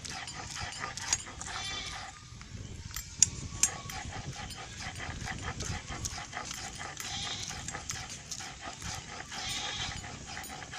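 An animal calling repeatedly in the background, with scattered light clicks.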